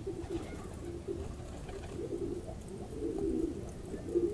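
Domestic pigeons cooing, low and repeated, busiest about three seconds in.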